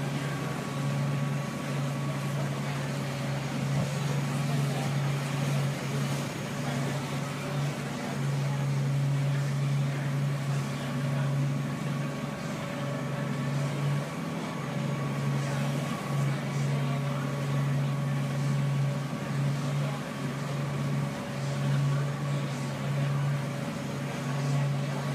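Tour boat's engine running at a steady drone, a constant low hum with fainter steady tones above it.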